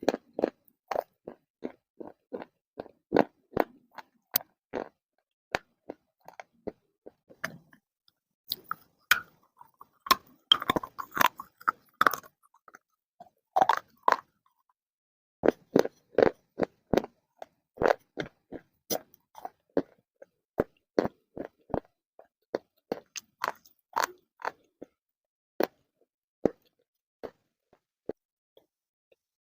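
Someone biting and chewing crunchy clay: irregular crisp cracks and crunches, with a denser run of crunching around the middle.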